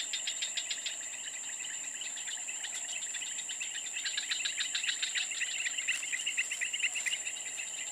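Insects calling: a rapid pulsing trill with a steady high-pitched whine above it.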